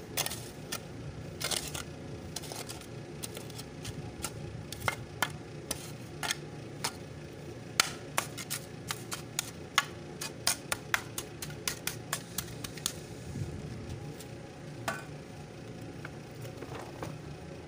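Small shovel's blade tapping down loose soil over a filled-in hole: a long run of sharp taps, sparse at first and quickening to several a second in the middle, then thinning out near the end.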